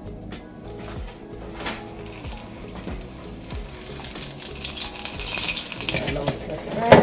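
Dough dumplings frying in hot oil: a sizzling hiss that swells midway and then eases, over background music. Near the end a sharp knock with a short ring, the loudest moment.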